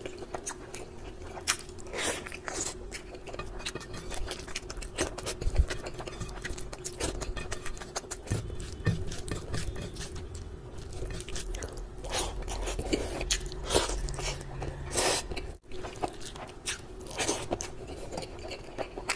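Close-up eating sounds of a man chewing and smacking mouthfuls of chicken curry and rice, with wet, sticky sounds of fingers mixing rice into curry between bites: a run of irregular short smacks and clicks.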